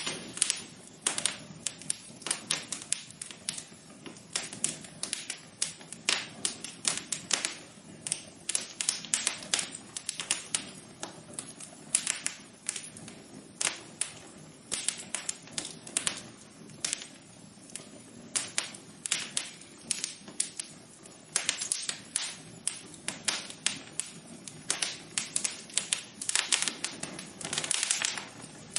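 Wood fire crackling in a fireplace: dense, irregular pops and snaps, several a second, over a faint steady hiss.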